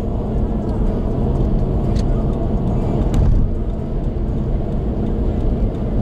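Steady road and engine noise heard inside a car cruising on an expressway, mostly a low tyre rumble, with a couple of faint ticks about two and three seconds in.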